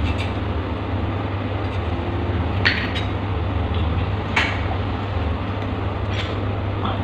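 Steady low mechanical hum with a handful of short, sharp clicks and knocks from plumbing parts and tools being handled, the sharpest near the middle.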